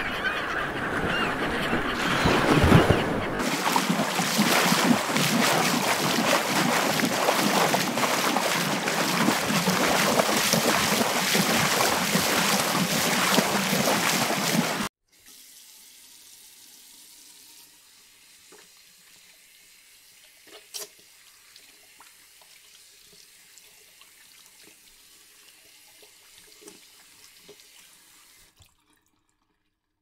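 Sea waves breaking and washing in a loud, steady rush that cuts off suddenly about halfway. Then a faint tap running while hands are washed, with a few small knocks and clicks, stopping shortly before the end.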